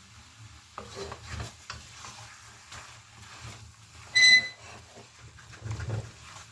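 Spoon stirring and scraping curry in a pan, with scattered knocks and one loud, short metallic ring about four seconds in as the utensil strikes the pan.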